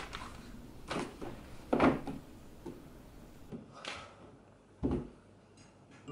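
A series of separate knocks and thuds as a thick textbook is handled and shut against a desktop; the loudest is a dull thud about two seconds in.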